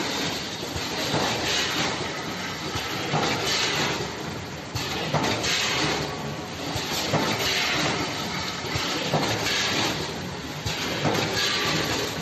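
Multihead weigher and vertical bagging machine running as snack bags are packed: a steady mechanical clatter, with a swell of hiss about every two seconds as the machine cycles.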